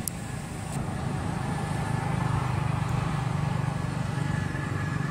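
A motor vehicle's engine running close by, a steady low hum that grows louder through the middle and eases off near the end, as if it is passing.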